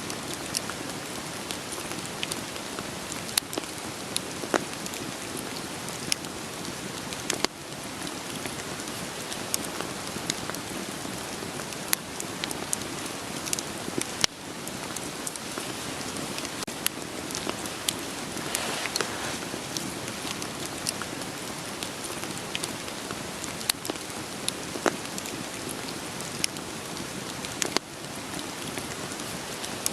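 Steady rain hiss with scattered sharp pops and crackles of burning firewood in a campfire.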